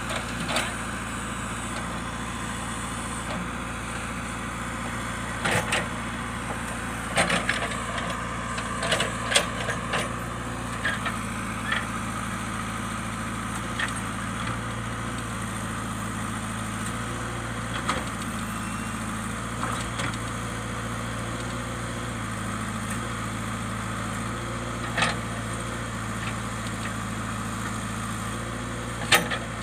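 A JCB digger's diesel engine running steadily, with scattered sharp knocks and clatters of rock and steel, several close together about a third of the way in.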